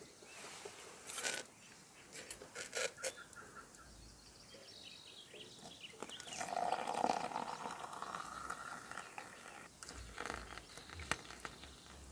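Light clicks and knocks of metal camp cookware being handled as a stainless steel billy pot is lifted off a small camp stove, with a louder, rougher sound lasting about two seconds midway.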